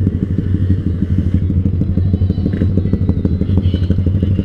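Yamaha Vixion 150 cc single-cylinder motorcycle engine running steadily through a Proliner TR1 short aftermarket exhaust, giving a deep, even pulsing note with no revving.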